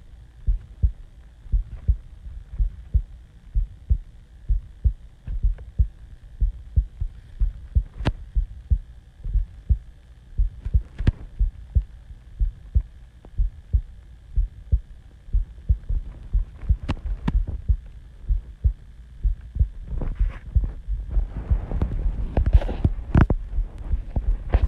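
A person's heartbeat recorded close against the chest: a steady rhythm of short, low thuds. A rustling hiss with a few sharp clicks grows louder near the end.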